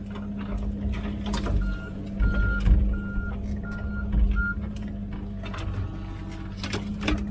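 Komatsu PC16 mini excavator's diesel engine running steadily, with scattered sharp knocks and clanks. A high beep sounds five times in the first half, in uneven lengths.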